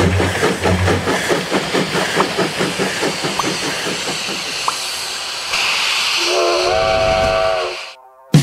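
Steam locomotive chuffing at a fast, even beat, then a rush of steam hiss and a multi-tone steam whistle that slides up briefly and holds for about a second and a half before cutting off. A short sharp click comes at the very end.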